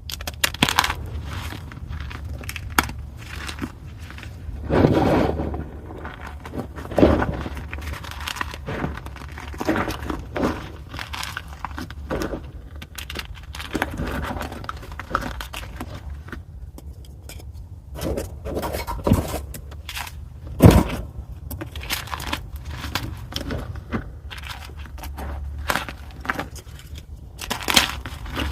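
Pieces of dyed gym chalk (magnesium carbonate) being crushed: a run of irregular crunches and crackles, with a sharper, louder crunch about two-thirds of the way in, over a faint low hum.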